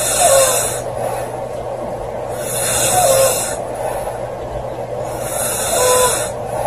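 A young woman snoring loudly in her sleep: three breaths about three seconds apart, each a hissing rush with a short falling whistle.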